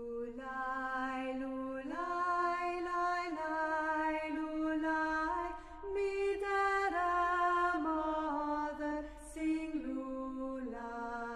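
Slow, chant-like music of long held notes that step from one pitch to the next every second or two.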